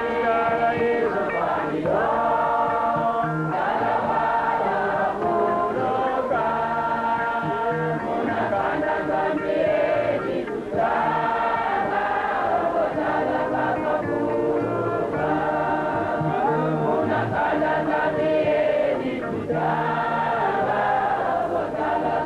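A choir singing a church hymn in phrases, many voices together over repeated low bass notes.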